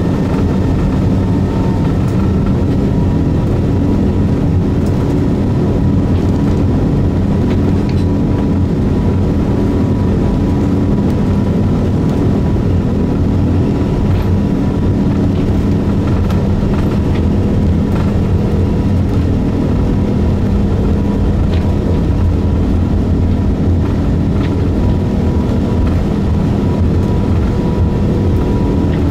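Airbus A380's Rolls-Royce Trent 900 engines heard from inside the cabin while taxiing: a steady drone with a low hum and a thin steady tone above it.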